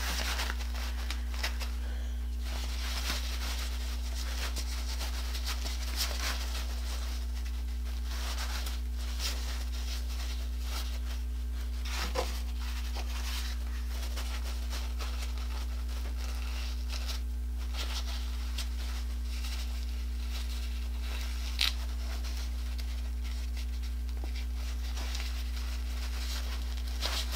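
Synthetic fabric of a lawn-mower leaf drag bag rustling and crinkling faintly as it is handled and pinned together, with a few short sharp clicks, over a steady low hum.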